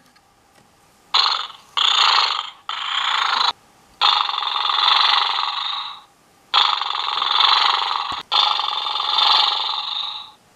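Zoomer Show Pony robotic toy making its grooming-mode sounds through its speaker as its mane is brushed: six hissing bursts, each a second or two long, that start and stop sharply.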